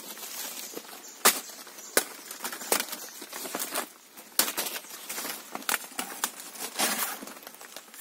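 Dry banana leaves and straw crackling, with an irregular run of sharp snaps and cracks, the loudest about a second in.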